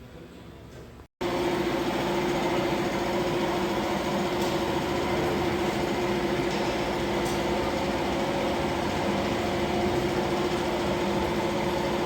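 Hyundai Solaris engine running steadily, in a video about its engine knock; a loud steady hum with a fast, dense rattling texture. It comes in abruptly after a brief dropout about a second in.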